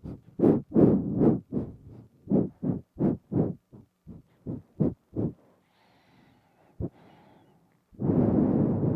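Quick, sharp nasal puffs of breath right against a binaural microphone, about three a second for around five seconds. After a pause with a faint hiss and one click, a long, steady breath out starts near the end.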